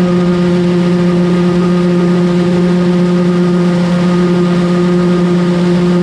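Combine harvester running at steady speed while its unloading auger empties shelled corn into a grain cart: a loud, constant hum at one unchanging pitch.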